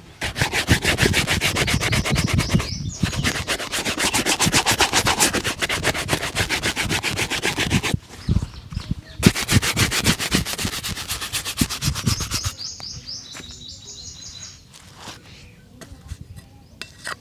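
A shoe being buffed during a shoe shine, with fast, even back-and-forth scrubbing strokes in two long runs and a short break between them. The strokes turn quieter and thinner near the end.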